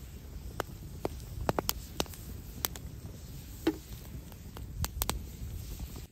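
Open wood fire crackling, with about ten sharp, irregular pops over a low steady rumble of the flames. A louder knock comes about three and a half seconds in.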